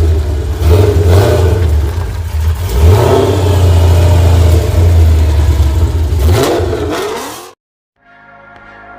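Car engine running loud with a deep rumble, revved up twice, then cut off abruptly; faint music starts just after.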